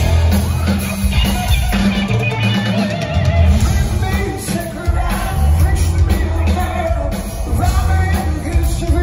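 Rock power trio of electric guitar, electric bass and drum kit playing loud and continuously live, picked up from the audience in a theatre, with heavy bass and repeated drum hits.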